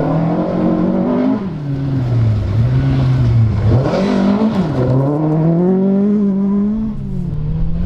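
Ford Escort Mk2 rally car's engine revving hard as it slides through on gravel. The pitch repeatedly drops and climbs again with lifts and gear changes, dipping sharply and rising about four seconds in, with a crackle of flung gravel around then.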